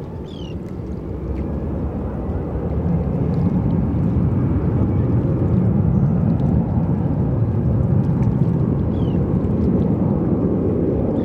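Twin-engine widebody jet airliner on its takeoff roll, heard across the water: a low engine rumble builds over the first few seconds, then holds steady and loud.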